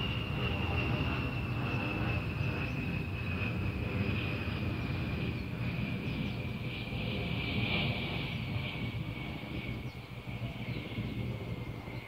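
Distant engine noise: a steady low rumble with a thin high whine that slowly falls in pitch, growing fainter near the end.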